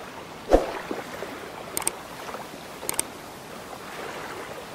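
Intro sound effects over a steady rushing background: a short thump about half a second in, then two pairs of sharp clicks near two and three seconds in, the clicks of a subscribe-and-bell button animation.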